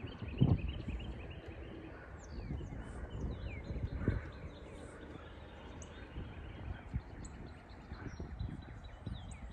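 Wind buffeting the microphone in gusts, with a rumble and a few low thumps. Small birds chirp and sing in short notes throughout.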